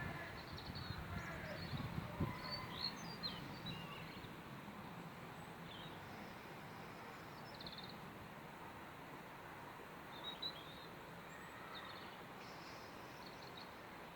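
Steady faint outdoor background noise with small birds chirping now and then. A few soft knocks come in the first three seconds.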